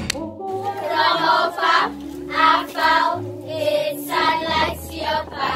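A group of children singing together in short rhythmic phrases, over steady low accompanying notes.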